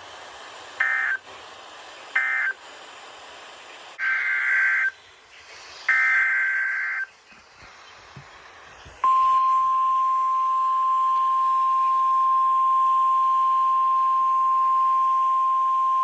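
Emergency Alert System SAME data bursts on NOAA Weather Radio: two short raspy bursts that close the previous message, then two longer header bursts for the next alert. About nine seconds in, the steady 1050 Hz warning alarm tone starts and holds, the signal that a new warning follows.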